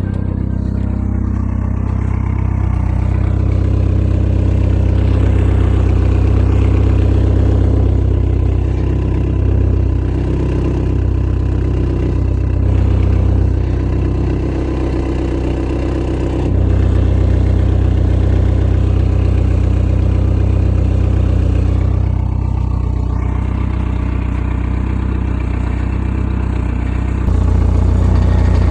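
Car engine running at the exhaust, mostly idling, with the revs and loudness stepping up sharply about 16 and 27 seconds in. The fake turbo whistle fitted in the exhaust tailpipe adds no whistle: it does nothing.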